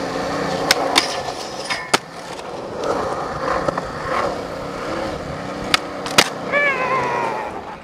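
Skateboard wheels rolling on smooth concrete, broken by sharp clacks of the board's tail popping and landing, several times, with a pop and a landing close together about six seconds in.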